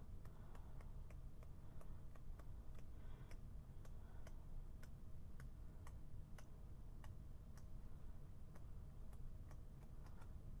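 Faint, quick ticking clicks, two or three a second, over a low steady hum of room noise.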